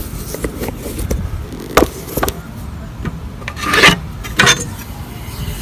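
A pencil scraping a line along the edge of a steel framing square on a wooden rafter board: a few short scratching and rubbing strokes.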